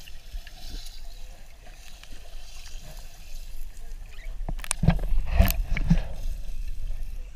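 Lake water sloshing and gurgling around a waterproof action camera held half under the surface, the sound muffled by the water and housing. A cluster of louder splashes comes about five seconds in.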